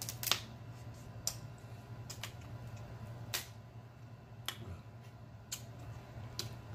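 Crab leg shell being snapped and picked apart by hand: a series of sharp, short cracks about once a second.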